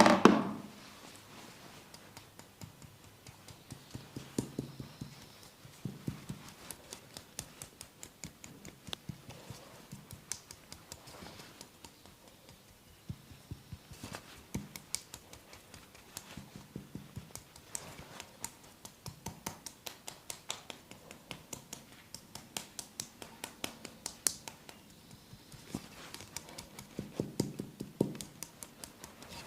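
Massage sounds from hands working on skin and hair: a fast, uneven run of sharp clicks and taps, several a second, with a loud hit at the start and a few soft thumps.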